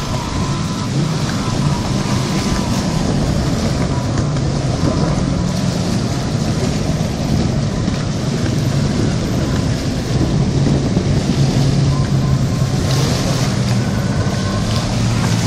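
Jet ski engine running steadily, its pitch wavering slightly, under a haze of wind noise on the microphone.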